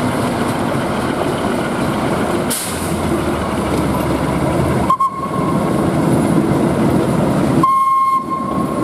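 Narrow-gauge diesel locomotive running past on its own, its engine giving a steady low rumble. Near the end a high steady tone comes in over the rumble.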